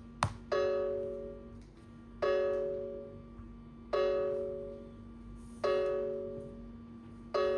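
Smartphone ringtone: a piano-like two-note chime struck about every 1.7 seconds, five times, each strike ringing out and fading before the next. A sharp click comes just before the first chime.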